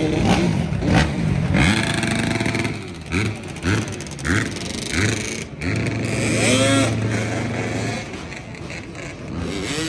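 Dirt bike and ATV engines revving: the pitch swings up and down at first, then four short throttle blips come about half a second apart, and a longer rev rises and falls later on.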